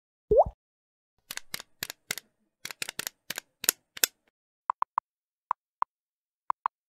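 Slideshow animation sound effects. A short rising pop comes about a third of a second in, then a quick irregular run of sharp clicks for about three seconds, then a few short, evenly pitched ticks at uneven spacing as the question text types onto the screen.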